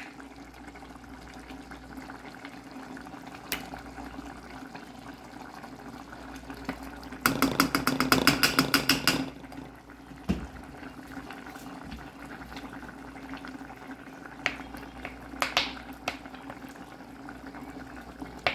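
Chicken simmering in liquid in a pan, a steady bubbling. Midway there are about two seconds of rapid, evenly spaced clicks, roughly ten a second and the loudest part, with a few single clicks scattered elsewhere.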